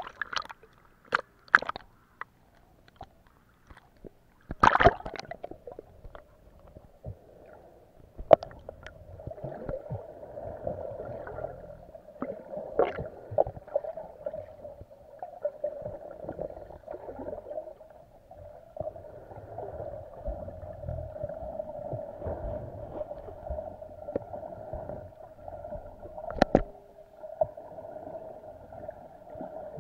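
Sea water splashing against a camera as it breaks the surface and goes under, with sharp knocks and a loud burst in the first five seconds. Then muffled underwater sound: a steady hum with scattered clicks and gurgles.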